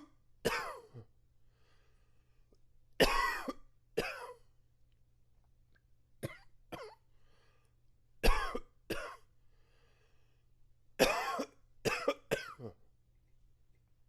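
A man coughing in short fits of two or three coughs at a time, a fit every two to three seconds, with faint breaths between; the coughing stops near the end. It is allergy coughing.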